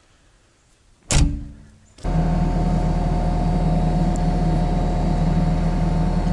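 A single sharp clunk about a second in. Then the diesel engine of a Bobcat E63 compact excavator idles steadily, cutting in suddenly about two seconds in.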